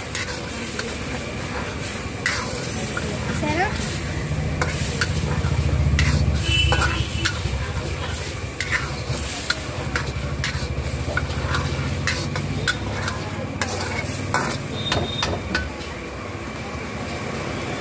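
Metal spatula scraping and clinking against a black iron wok as chicken manchurian is stirred, its sauce sizzling in the hot pan, over a low rumble.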